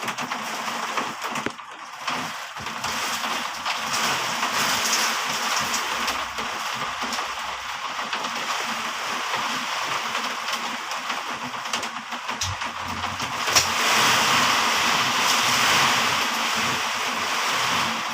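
Heavy rain pouring with wind, a dense steady hiss with a few low gusty rumbles, growing louder a little after the middle.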